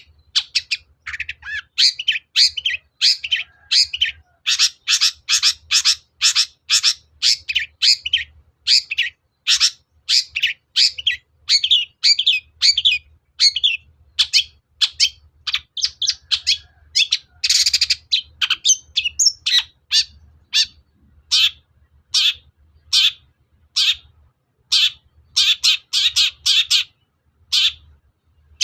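Long-tailed shrike (cendet) singing a fast, unbroken series of short, harsh notes, several a second, with a rougher, scratchier call about two-thirds of the way through.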